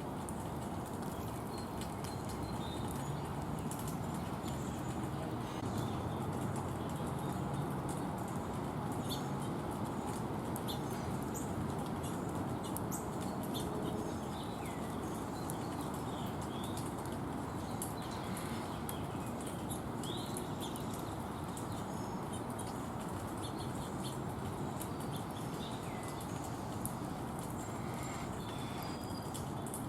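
Small birds at a feeder: scattered short chirps and calls over a steady background hum, with frequent light clicks and wing flutters.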